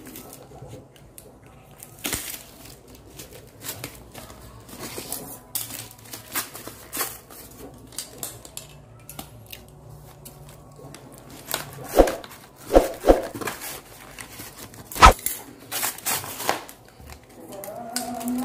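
A cardboard battery carton being cut open with a blade and torn away by hand: scattered scrapes, crinkles and rips of cardboard and packing tape, with a few loud sharp rips in the second half.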